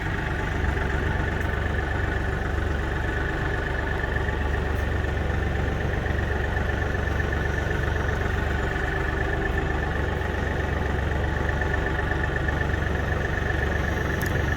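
Tractor engine running steadily, with a steady high-pitched whine above its low rumble.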